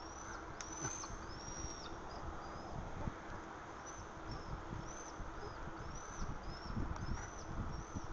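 Bicycle and trailer rolling along a paved path: a steady rush of tyre and wind noise with scattered light bumps. Above it, a bird gives short, high, arching chirps, repeated every half second or so.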